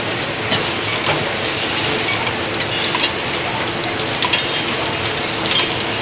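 Automatic vial inspection machine running: the chain-driven conveyor of metal carriers makes a steady mechanical clatter, with scattered light clinks of glass vials in the carriers.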